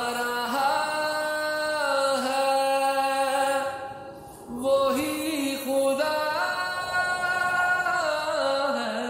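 Background music: a solo voice singing long, held notes that slide from pitch to pitch, in two phrases with a short break about four seconds in.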